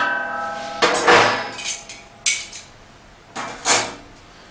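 Stainless steel stove parts and pans clanking as they are handled and set down: a ringing metal clang at the start, then about five more knocks and clanks that die away near the end.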